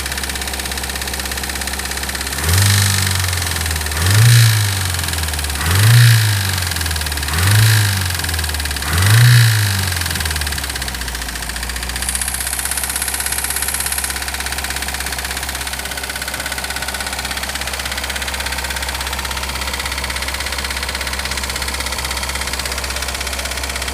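1984 Toyota 22R four-cylinder engine idling, then revved five times in a row, each rev rising and falling back about every second and a half, before settling back to a steady idle.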